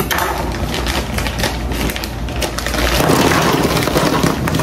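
Plastic bag of frozen meatballs crinkling as it is pulled open, then, from about three seconds in, the meatballs tumbling out and clattering into a disposable aluminium foil pan.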